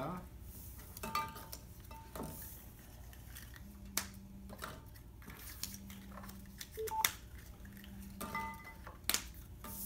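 Small plastic capsules being snapped shut and dropped into a clear box, making sharp separate clicks and clatters every second or two. Short steady low electronic tones sound a few times in between.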